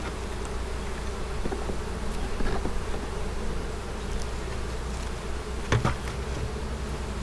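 Honeybees buzzing steadily around an open hive. A few light knocks of wooden hive parts being handled, the loudest about six seconds in.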